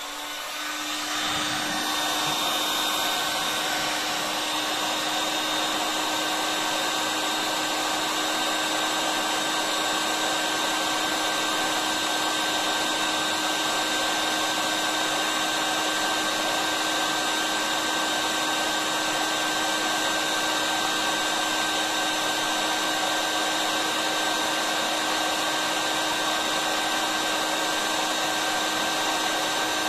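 Hot-air gun (heat gun) blowing steadily, its fan motor rising to full speed over about the first two seconds and then holding a constant whir with a steady hum, as it heats a copper tube to melt plastic.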